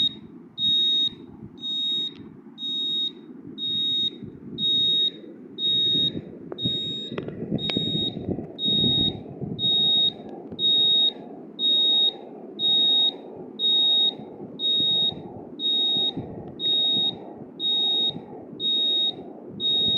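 Arduino buzzer module driven by the tone() function, beeping a single high-pitched tone on and off about once a second, each beep about half a second long.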